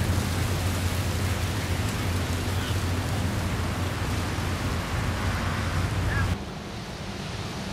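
Steady rushing of wind on the microphone, with the wash of small surf on the beach, low rumbling and hissing throughout; it drops noticeably in level a little after six seconds in.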